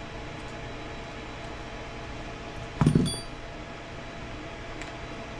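A brief metallic clink of a hand tool on metal parts about three seconds in, with a few bright ringing tones, over a steady low hum.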